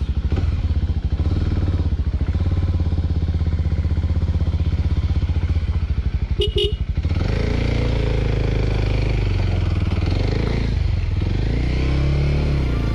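Motorcycle engine idling with a steady, rapid beat, with a short beep about six and a half seconds in. The bike then pulls away and accelerates through the gears, the engine note rising and falling with each shift.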